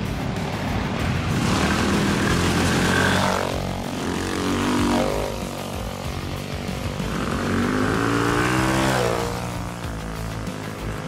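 Minibike engines revving hard as riders climb a dirt trail and pass close by, twice. Each time the engine note rises as the bike approaches, then drops in pitch as it goes past.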